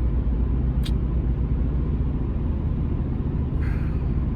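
Steady low rumble, with a single brief click about a second in.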